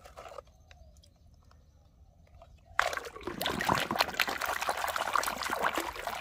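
Water splashing and sloshing as a hand swishes a muddy plastic toy train back and forth in shallow water to wash it, starting suddenly about three seconds in. Before that there are only a few faint clicks.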